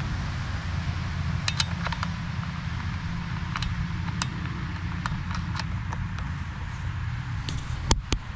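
Scattered light metallic clicks and clinks of a chainsaw being handled and worked on by hand, with two louder knocks near the end, over a steady low rumble.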